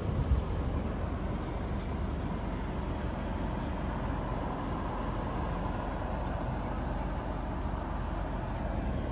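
Steady low rumble and hiss inside the cabin of a 2025 Chevrolet Trax, its 1.2-litre turbo three-cylinder idling in Park, with a brief knock near the start.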